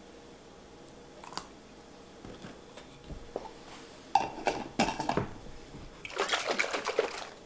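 Grey plastic storage lids being set on and screwed onto glass mason jars of iced tea, with lemon handled over the jars: a few light clicks and taps, then sharper knocks of plastic on glass about four seconds in, and a quick run of clicking near the end.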